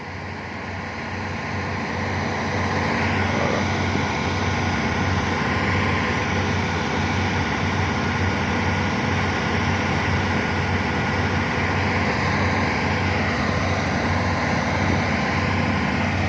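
Heavy diesel engine running, growing louder over the first few seconds and then running steadily with a low throb.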